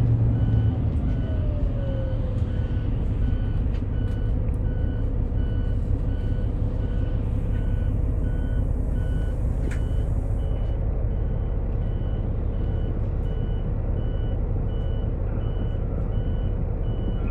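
Cabin sound of a Daewoo FX116 coach under way, its Doosan DL08S turbo-diesel inline-six running with a steady low drone and road noise. The engine note falls over the first two seconds, then holds steady. A high electronic beep repeats evenly throughout, with a short hiss and a click about ten seconds in.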